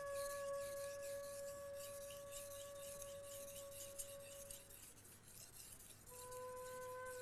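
A Japanese kitchen knife's steel blade stroked quickly back and forth on a 1500-grit whetstone to sharpen the cutting edge. The strokes make a rhythmic scraping that stops about four seconds in. Underneath is soft background music of held ringing tones: one fades out midway and another begins near the end.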